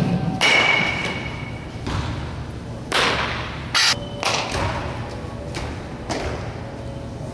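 A series of sharp smacks and thuds, irregularly spaced, each with a short echo in a large hall: a softball hitting leather gloves and bouncing off the turf during fielding practice.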